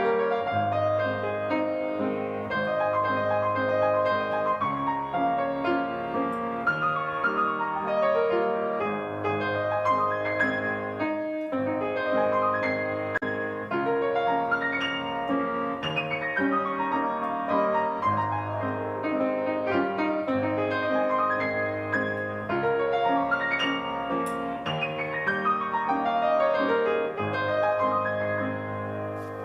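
Solo piano music, slow sustained chords and melody with no voices.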